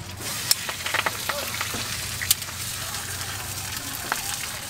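Green vegetables sizzling as they land in a hot oiled wok, with a steel ladle stirring and knocking sharply against the wok a few times.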